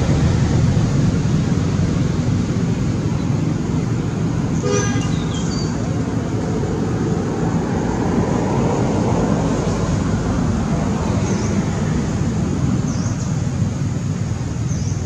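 Steady low rumble of road traffic, with one short horn toot about five seconds in and a few faint high chirps near the end.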